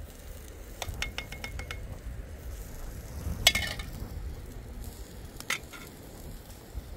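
Metal ladle and spoon clinking against metal cooking pots and a metal bowl as food is stirred and dished out: a quick run of light ticks about a second in, one loud ringing clink in the middle, and another clink near the end.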